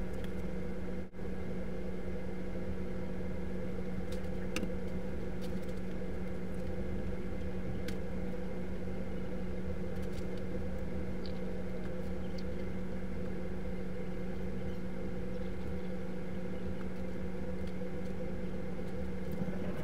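A steady electrical or ventilation hum with several held tones, with a few faint ticks and taps scattered through it; the sound cuts out for an instant about a second in.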